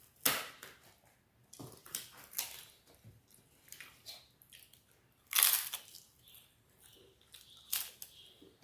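Close-miked eating: several crunchy bites with chewing between them, the loudest crunch a little past halfway.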